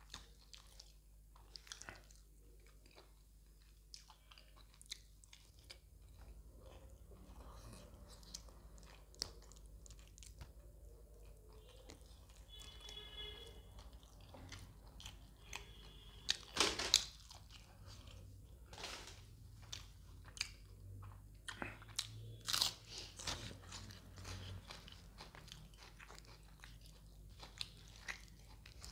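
A person eating curry and roti by hand: steady chewing and biting with many small mouth clicks, broken by a few sharp crunches, the loudest about halfway through and again a few seconds later.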